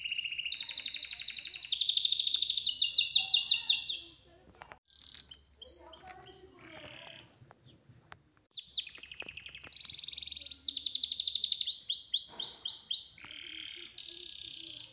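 High-pitched bird calls: chirps and fast trills in quick series. They fall away for a few seconds in the middle, then start again.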